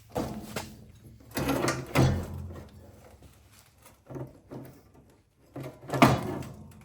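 Irregular metal clunks, knocks and scrapes as a small quad engine is shifted and set into a riding lawn mower frame, with the loudest knock near the end. A faint steady low hum runs underneath.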